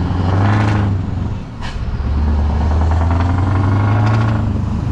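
DAF lorry's diesel engine pulling away and accelerating under load, its pitch rising through each gear, with a gear change about a second and a half in and another near the end.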